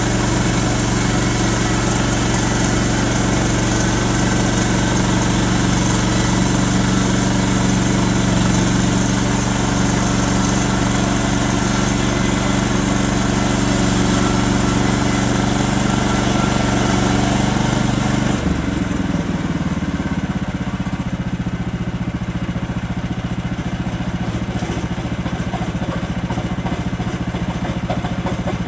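Sawmill engine running steadily under load while the blade cuts a slab off a log, with a high hiss from the cut. About eighteen seconds in the cutting noise stops and the engine drops to a lower, quieter idle as the cut ends.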